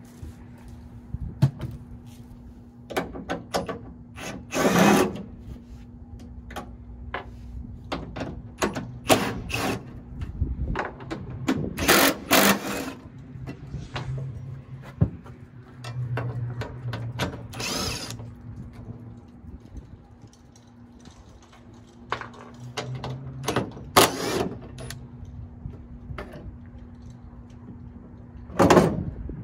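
A cordless drill runs in short spurts, backing bolts out of a pickup bed's sidewall. Loud clatters of metal parts and tools are set down or dropped on the bed in between.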